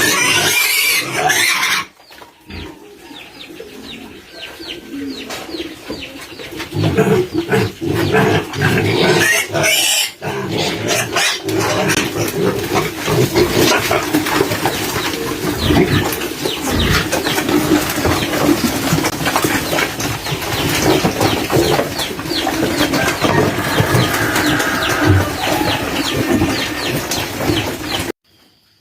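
Pigs calling: a dense, continuous run of grunts, quieter from about two to six seconds in, that cuts off suddenly near the end.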